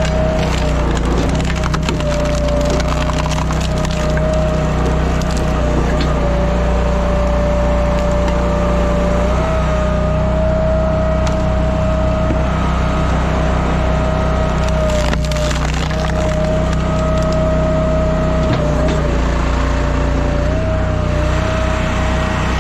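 Timberwolf Alpha 6 hydraulic log splitter at work: its gas engine and hydraulic pump running steadily, the pitch sagging briefly now and then under load, while logs crack and splinter as the four-way wedge splits them.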